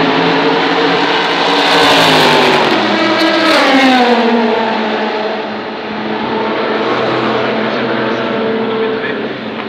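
A Le Mans prototype race car passing at speed, loudest around two to four seconds in, its engine note then falling sharply in pitch as it goes by. Other race engines are heard steadily underneath.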